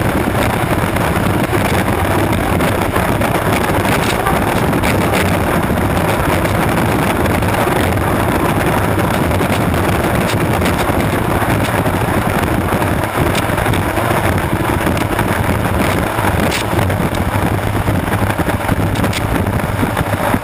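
Unlimited racing hydroplane's turbine engine running flat out, heard from an onboard camera as a loud, steady rush of noise, with wind buffeting the microphone and spray off the hull.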